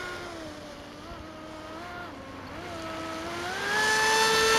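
Brushless electric motor of a Delta Force Mini Sniper RC speedboat, a Turnigy 3656 2600kv running on a 3s2p LiPo, whining as the boat runs on the water. The pitch dips and rises with the throttle, then climbs to a higher, steadier whine and grows louder about three and a half seconds in.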